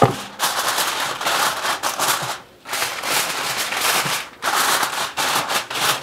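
Aluminium foil crinkling and crackling as it is pulled off the roll and pressed over a baking dish, with a short pause partway through.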